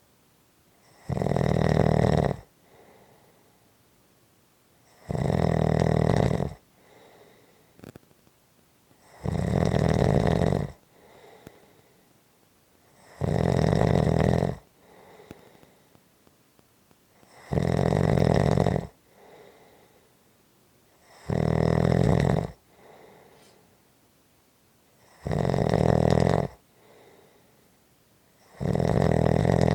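Snoring, slow and regular: a loud snore about every four seconds, each about a second and a half long, with a faint breath between them.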